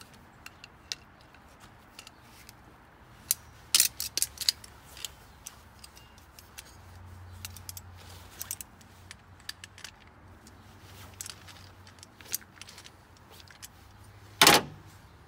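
Wrenches clinking and clicking against a fuel line fitting and filter as they are worked by hand, in scattered small clicks with a louder clank about four seconds in and another near the end.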